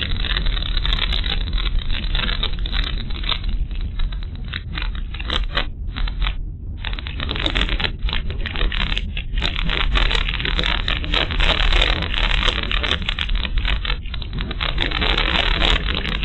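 Cabin noise of a car on the move, picked up by a windscreen dashcam: a steady low drone from the engine and tyres, under dense crackling and rattling clicks.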